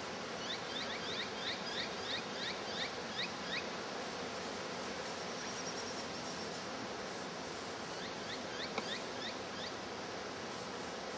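Faint, steady hum of honeybees working at a log hive. Twice a run of quick, high, rising chirps comes through, about four a second, the first lasting about three seconds and the second about two.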